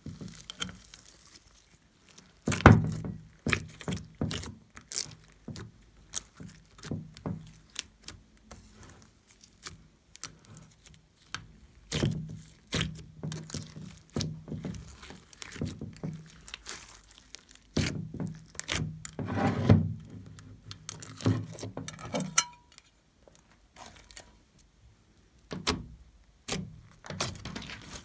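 Glossy slime being pressed and folded by hand, giving irregular sticky pops, clicks and squishes, with a denser run of crackling about two-thirds of the way through.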